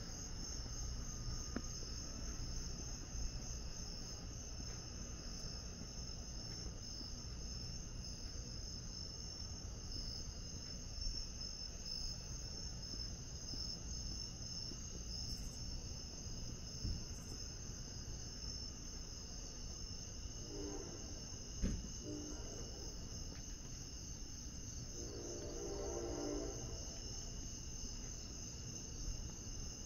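Chorus of night insects calling steadily, a high pulsing trill with no break.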